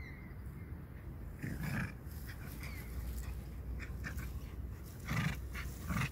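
Small Maltese x Shih Tzu dog growling and huffing in short bursts, a few times, while tugging on a rope toy.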